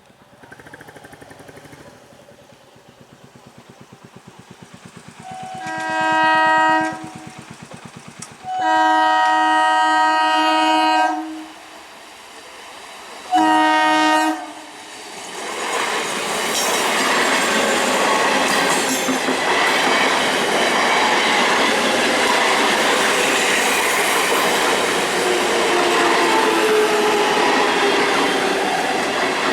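Indian Railways electric train sounding its horn three times as it approaches: a blast of about a second and a half, a longer one of about two and a half seconds, then a short one. About fifteen seconds in it passes close by with a loud steady rumble and clatter of wheels on the rails.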